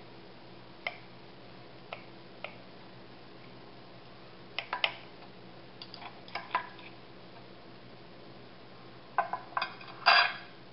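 Metal knife and fork clinking and scraping against a ceramic plate while cutting into chicken: scattered light clicks in small groups, with a louder run of clinks near the end.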